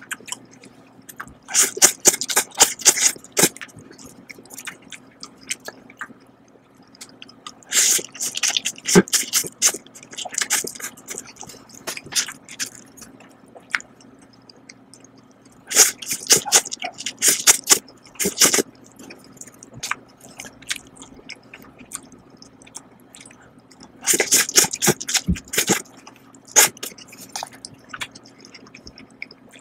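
Slurping instant noodles close to the microphone, in four loud bouts of quick wet sucking bursts several seconds apart, with softer chewing between them.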